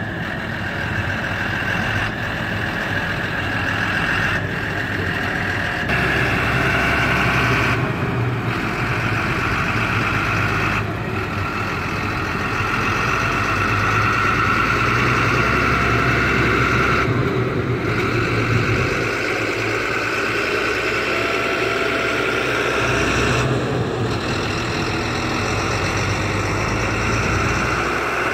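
Engine idling steadily, its low hum and higher whine shifting in pitch a few times.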